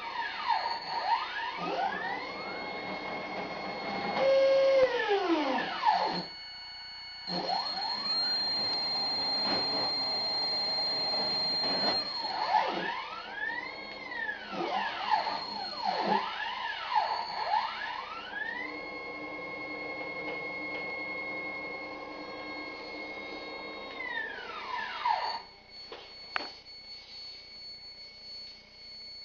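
The 57H76-208B stepper motors of a homemade CNC router whining as the machine runs test moves. Their pitch rises as each axis speeds up, holds steady during the move and falls as it slows, over and over. The moves stop about 25 seconds in, leaving a faint hum and a few clicks.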